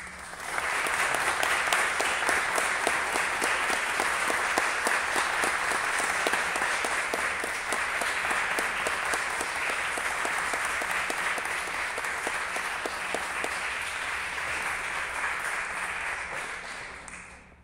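Audience applauding: it starts suddenly, goes on steadily and dies away near the end.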